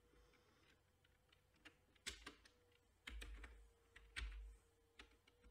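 Faint keystrokes on a computer keyboard, a scattered series of single key presses as numbers are typed, over a faint steady hum.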